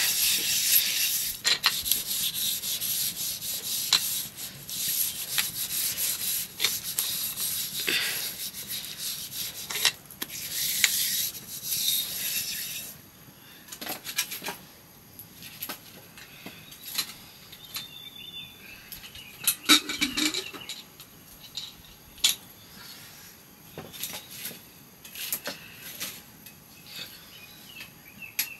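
Repeated rasping, scraping strokes of something worked by hand for about the first thirteen seconds, then quieter scattered clicks and knocks.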